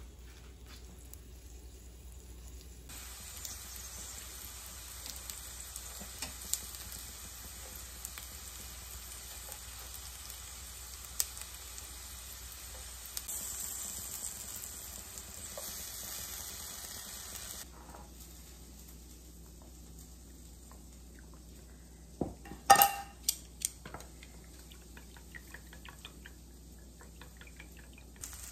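Gyoza frying in oil in a nonstick pan: a steady sizzle with scattered pops and crackles. The sizzle then stops abruptly, and chopsticks clink sharply against a glass bowl several times while stirring a cloudy water mix.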